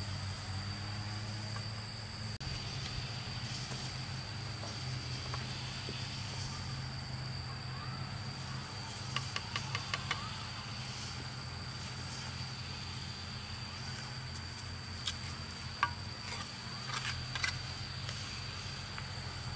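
Steady high drone of insects over a low steady hum, with a few sharp taps and clicks from a steel trowel working mortar into a rubble-stone wall, including a quick run of about five taps about halfway through.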